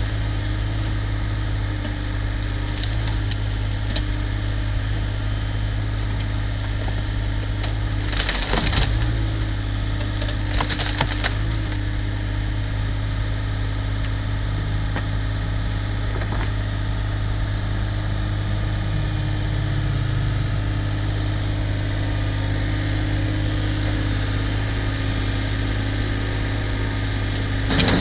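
Cat 304 mini excavator's diesel engine running steadily, with wood cracking and splintering twice around the middle and again near the end as the machine breaks and moves debris wood.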